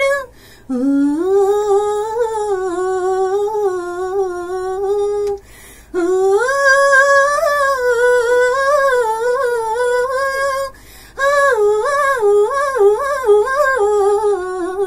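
A female voice sings long wordless notes with no accompaniment, in three phrases broken by short pauses for breath. The last phrase moves quickly up and down in pitch.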